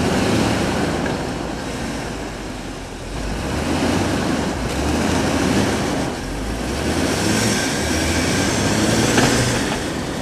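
Jeep engine revving up and down repeatedly as its wheels spin in deep snow: the Jeep is stuck, spinning its tyres hard enough to smell of burning rubber.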